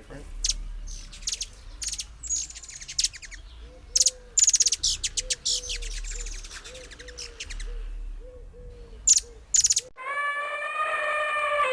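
Small birds chirping and trilling in quick, repeated bursts. About ten seconds in, a different animal gives one long held call at a steady pitch.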